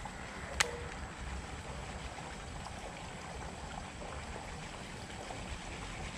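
Quiet outdoor ambience beside a still canal: a steady low rumble and hiss, with one sharp click a little over half a second in.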